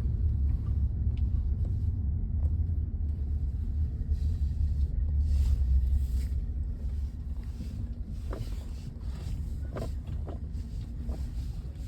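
Heavy vehicle engine running with a steady low rumble, easing somewhat about seven seconds in.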